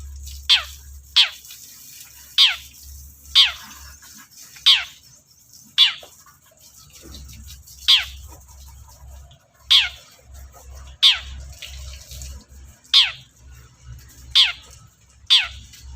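Long-tailed shrike (cendet) calling: about a dozen sharp, quickly falling notes, given irregularly a second or so apart.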